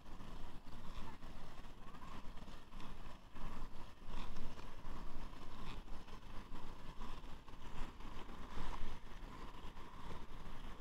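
Roller-skate wheels rolling on an asphalt path, a steady rolling rumble that swells and fades, with wind buffeting the microphone.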